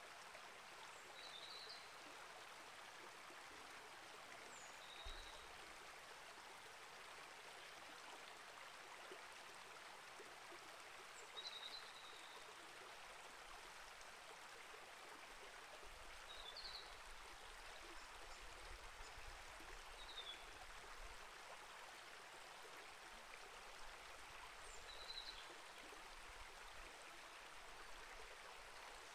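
Small rainforest creek flowing, a faint steady wash of water. Short high bird chirps come every few seconds over it.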